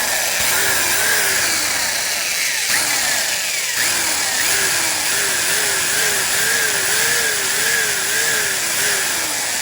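Electric drill running steadily while drilling a starter hole in an amplifier heat sink. Its motor pitch wavers up and down about once a second as the bit bites and eases.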